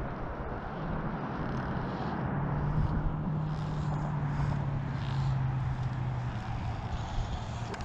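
Steady rush of a shallow river flowing around a wading angler. A low hum swells and fades for a few seconds in the middle.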